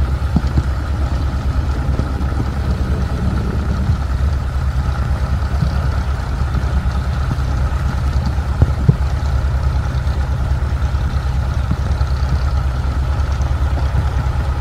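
Heavy machinery engine running steadily with an even low throb and a faint steady whine above it, as the recovery rig works to winch out a mired excavator. Two short knocks about nine seconds in.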